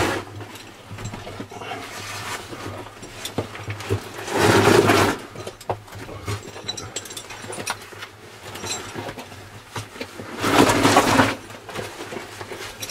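A caver crawling through a tight rock passage: scraping and shuffling of suit and gear bag against the rock over a steady low hum, with two louder rasping noises about four and a half and eleven seconds in.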